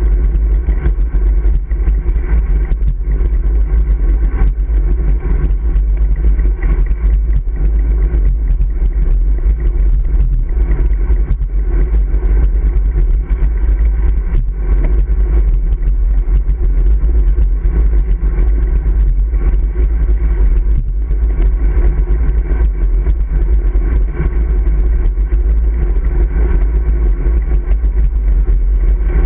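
Steady wind rumble and road noise picked up by a handlebar-mounted camera on a road bike riding along asphalt.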